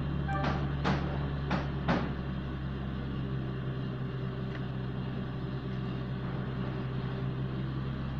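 Four sharp knocks in the first two seconds as the copper earth plate is settled onto the lumps of charcoal in the earthing pit, over a steady low engine-like drone.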